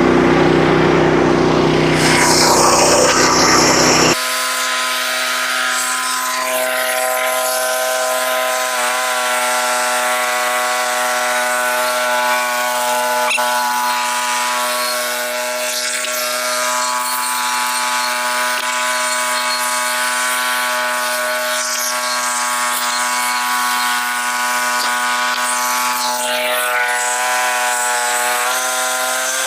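Engine-driven saw running steadily while cutting wood. About four seconds in, the sound changes abruptly to a steadier, thinner hum with a fixed pitch.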